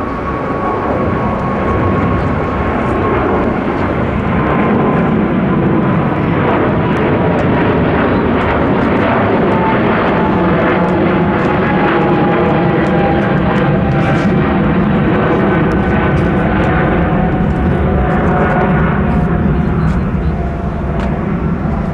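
Jet airliner's engines running loud as it passes close by, a steady wide noise with a thin whine that slowly falls in pitch. The sound drops away sharply at the end.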